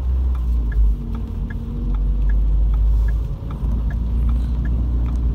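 Car cabin road rumble while driving on wet roads. A turn-signal indicator ticks steadily, alternating louder and softer clicks, a louder one about every 0.8 seconds.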